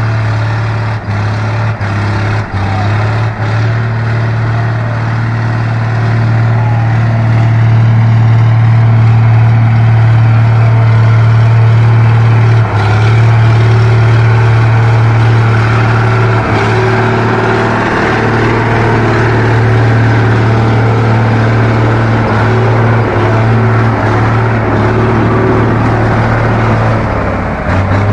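Cummins NHC-250 inline-six diesel of an M813 6x6 military truck running hard and steady under load as the truck pulls through mud: a loud, deep, constant drone, with a few brief dips in the first seconds.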